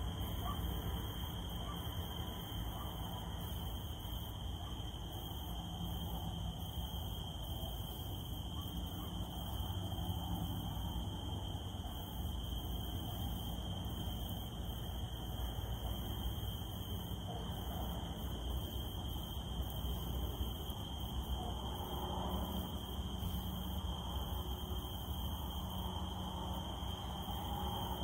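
Cicadas singing in a continuous high-pitched drone that holds steady without a break, over a faint low hiss.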